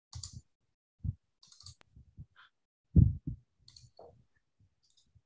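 A few soft, separate thumps and faint clicks of handling noise, the loudest about three seconds in, with brief flecks of hiss between them.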